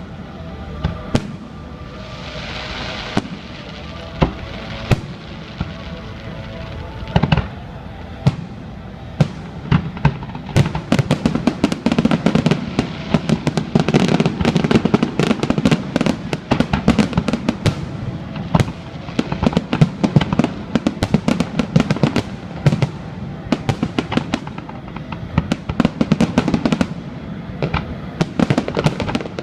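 Aerial fireworks going off: scattered single bangs at first, building about a third of the way in to a dense, rapid barrage of cracks and booms, with music playing underneath early on.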